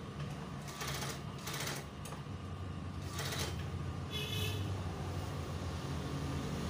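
Industrial sewing machine motor humming steadily, with a few short noisy bursts in the first half as the fabric is fed and handled. A brief high toot sounds about four seconds in.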